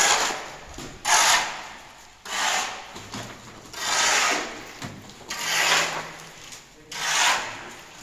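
A steel shovel scraping and scooping wet concrete into a wheelbarrow, six rough strokes about every second and a half.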